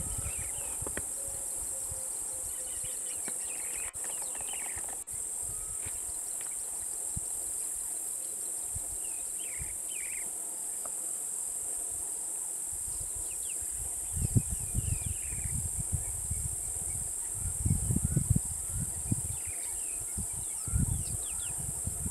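Steady high-pitched insect chorus over the bush, with scattered short falling bird chirps. In the second half a few bouts of low rumbling noise come and go.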